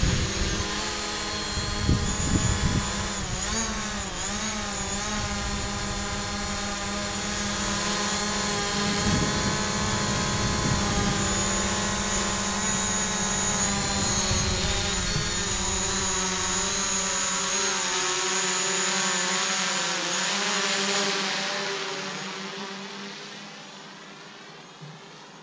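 DJI Mavic Pro quadcopter hovering and manoeuvring close by: the whine of its four propellers, several tones at once that waver up and down in pitch as the motors speed up and slow down. It fades away near the end.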